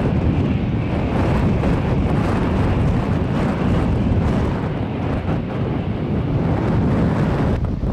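Storm wind buffeting the microphone: a loud, gusting rumble of wind noise with no steady tone in it.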